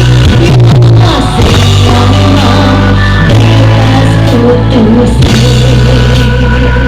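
Loud rock-style music with heavy bass notes held about a second at a time, played through a large sound-horeg sound system.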